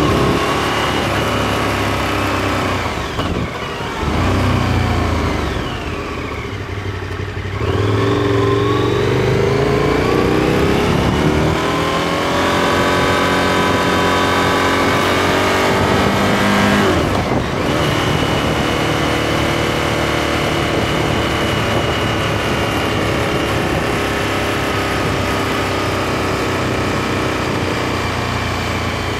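KTM 1290 Super Adventure's V-twin engine under way, heard from a camera mounted on the bike. The engine note sags a few seconds in, climbs as it accelerates from about eight to twelve seconds in, drops sharply around seventeen seconds in, then holds a steady cruising note.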